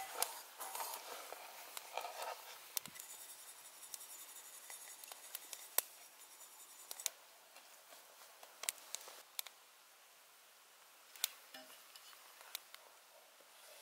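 Hands rubbing a dry spice rub into a raw beef roast on a wooden cutting board: soft, faint rustling and rubbing, with scattered single sharp clicks.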